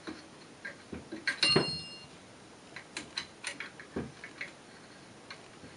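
Scattered light clicks and taps of small metal parts and tools as a pistol grip is worked onto an AK-pattern rifle's receiver. One brief metallic clink rings for about half a second, about a second and a half in.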